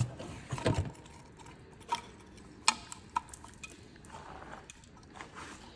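Metal clinking and knocking from parts being handled: a few knocks in the first second, then three sharp clinks about two, two and three-quarter and three and a quarter seconds in, each with a short ring.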